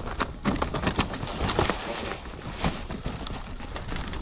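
Tyres rolling fast over a rough, stony downhill track, with many irregular knocks and rattles.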